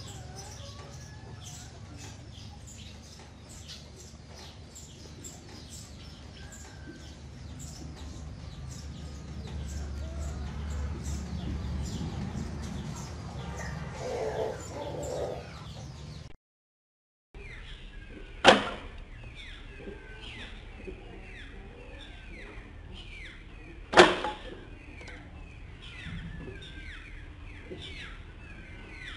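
Two sharp snaps about five and a half seconds apart in the second half, likely the rubber-band-powered doors of homemade PVC-pipe rat traps springing shut. Small birds chirp throughout, and a low rumble swells and fades in the first half.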